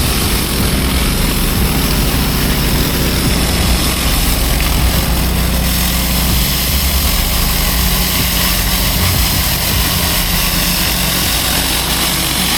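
Engine of a 12 GPM pressure washer running steadily at a constant speed, with the hiss of water spraying from a 31-inch Mini Mondo surface cleaner on concrete.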